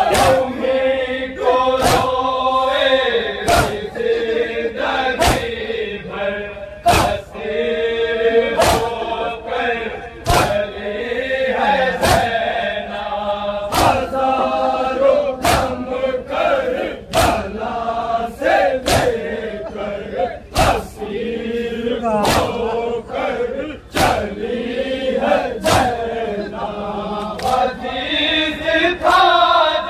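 Men chanting a nauha, a Muharram lament, together, with a sharp slap landing on every beat a little faster than once a second: the rhythm of matam, hands beating on chests.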